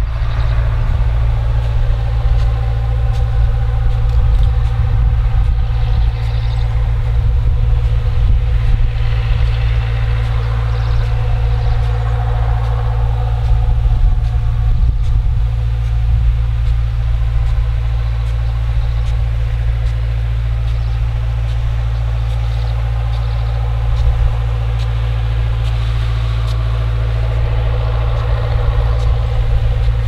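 John Deere four-cylinder turbodiesel engine driving a 1200 gpm irrigation pump at 40–45 psi, heard from about a quarter mile away as a steady low drone with a fainter steady hum above it.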